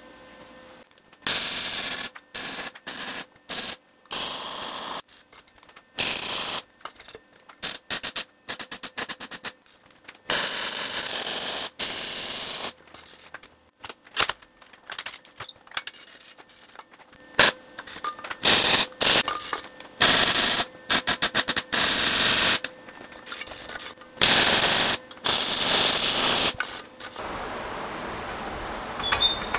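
MIG welder laying tack welds and short beads on steel, a crackling arc in a long series of bursts from a fraction of a second to a couple of seconds each, each stopping sharply.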